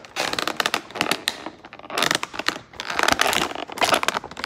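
Plastic toy packaging crinkling and crackling in bursts as a figure is worked out of it, with short pauses between the bursts.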